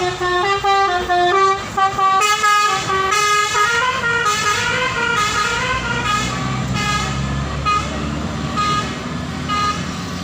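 Bus 'basuri' telolet horn (a multi-trumpet musical air horn) playing a tune of loud notes that step up and down. Its notes then thin out into short, spaced toots over the low running of the bus's engine.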